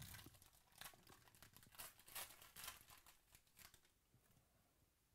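A 2018 Panini Chronicles baseball card pack's wrapper being torn open and crinkled by hand: faint, quick crackling rustles, thickest in the middle seconds, dying away near the end.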